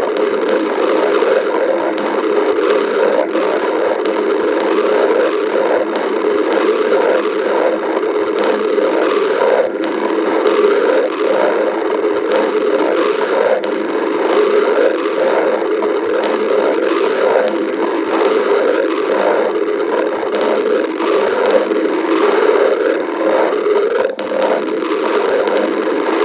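Human stomach growling: a continuous gurgling rumble with no pauses, flickering in level throughout.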